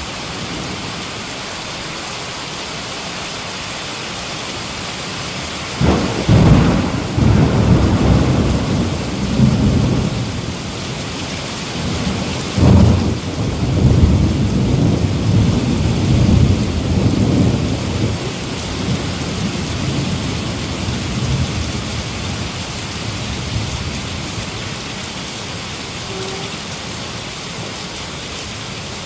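Heavy rain falling steadily. About six seconds in, a thunderclap breaks and rumbles on, with a second sharp crack near thirteen seconds; the rolling rumble fades back into the rain after about twenty seconds.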